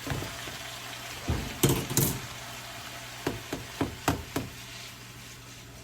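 Hard knocks and clatter against a wok as egg noodles are added to a crowded stir-fry: a loud cluster about a second and a half in, then five lighter, quicker knocks, over a steady low hum.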